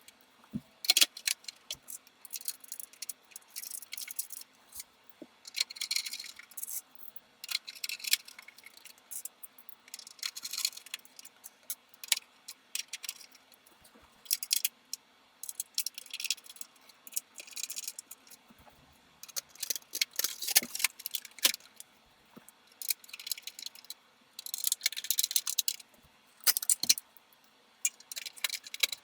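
Metal and plastic computer parts being handled during assembly: irregular clusters of clinks, clicks and rattles, each lasting a second or so, with short pauses between.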